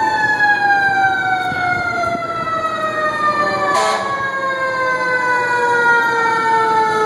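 Fire engine siren winding down, one long slow fall in pitch.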